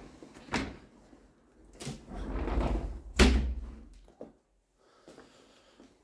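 Balcony door being shut: a couple of knocks and rattles, then a loud thud a little over three seconds in as it closes.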